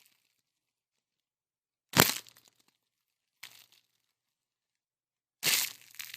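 Plastic being squashed and crushed in three separate crackling crunches: a sharp loud one about two seconds in, a fainter one soon after, and a longer one near the end.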